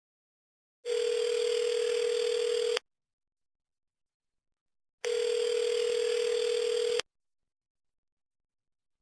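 Telephone ringing tone as heard by the caller: two steady two-second beeps with a slight pulsing waver, separated by about two seconds of silence.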